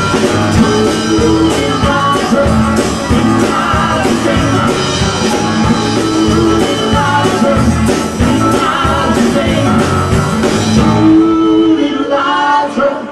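Live country-rock band playing: drums, bass, electric guitar and keyboard under a woman's lead vocal. About eleven seconds in, the drums and bass drop out and only lighter ringing parts carry on.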